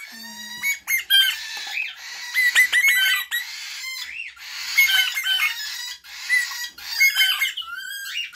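Eastern rosella chick giving rapid, repeated high-pitched squeaky begging calls as it is spoon-fed hand-rearing formula, the calls coming in bursts with short pauses between.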